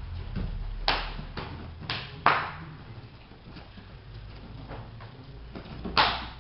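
A few sharp slaps from gi cloth, hands and bare feet striking the mats as jiu-jitsu escort holds are applied. The loudest comes about two seconds in, and another near the end as the partner is taken down onto the mat.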